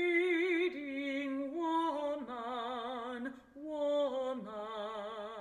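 Sung music: long held notes with a wavering vibrato, the melody stepping down in pitch from note to note, with a brief break about three and a half seconds in.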